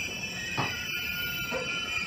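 Cab-car interior of a JR Kyushu 813 series electric train at a station stop: steady high electrical whine from its onboard equipment over a faint low rumble, with a couple of soft knocks.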